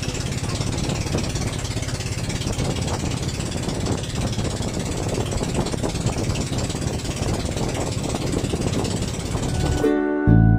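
Outrigger fishing boat's engine running steadily with a rhythmic knocking pulse, mixed with wind and wave noise. About ten seconds in it cuts off and a strummed ukulele song begins.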